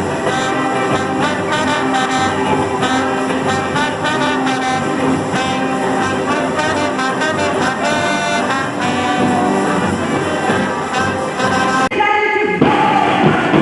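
A brass-led orchestra plays, with trombones and trumpets carrying the melody. About twelve seconds in, the music breaks off abruptly and a different passage begins.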